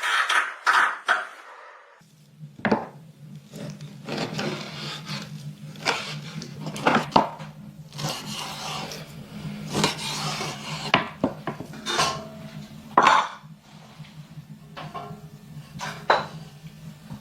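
Irregular knocks and clinks of cookware and utensils being handled. A steady low hum comes in suddenly about two seconds in and runs beneath them.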